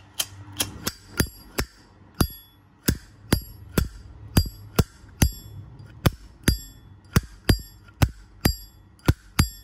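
Brushed-chrome Zippo lighter's lid flicked open and snapped shut over and over, about two clicks a second. Many of the clicks carry a bright metallic ring, the lighter's clear 'ping', which the seller calls a nice sound.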